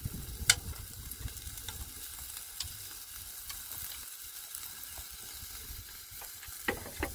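Pieces of meat sizzling in a grill pan over a portable gas stove: a steady faint hiss with scattered small crackles. One sharp click about half a second in.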